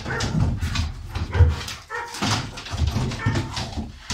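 Police dog whining and barking in a string of short bursts.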